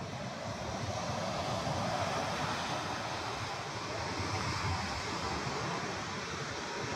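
Small surf breaking and washing up a sandy beach in a steady wash, swelling slightly about a second in, with low wind rumble on the microphone.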